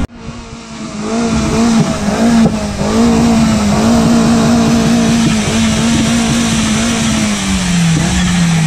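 Car engine held at high revs, its note wavering slightly, then dropping away as the revs fall near the end.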